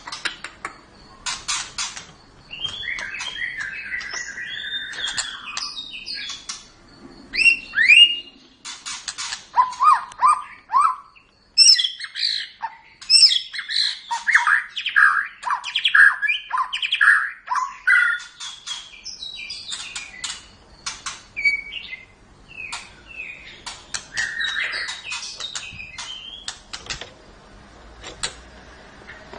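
White-rumped shama (murai batu) singing a long, varied song of sweeping whistles, quick runs of short notes and sharp clicking notes.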